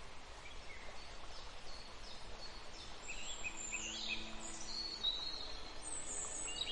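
Several birds calling over a steady background hiss: short chirps and whistled notes, growing busier about halfway through, with a long high whistle near the end.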